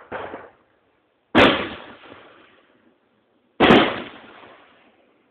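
Two aerial firework shells bursting about two seconds apart. Each is a sharp bang whose echo dies away over about a second.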